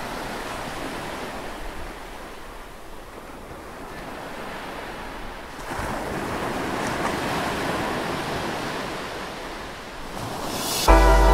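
Ocean surf washing in a steady rush of noise that swells about six seconds in. Near the end it builds briefly, then electronic music cuts in abruptly.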